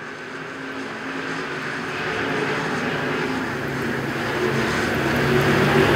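The engines of a field of dirt-track stock cars running at race speed, a layered drone that grows steadily louder as the pack comes around toward the listener.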